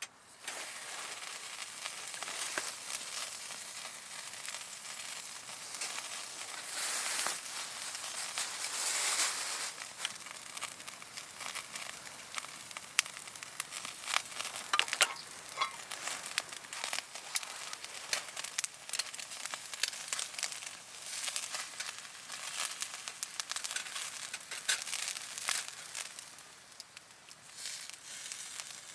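Food sizzling in a hot pan: a steady hiss with frequent small pops and crackles, swelling louder for a few seconds now and then.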